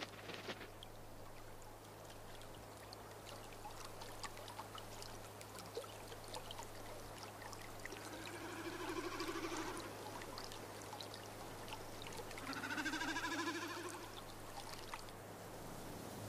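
Whooper swan giving two long calls about four seconds apart, over faint trickling water with small scattered ticks.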